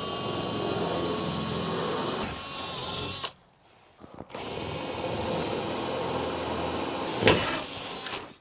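Handheld power drill running in two runs: one of about three seconds, a brief pause with a short blip, then a second run of about four seconds, with a sharp knock near the end.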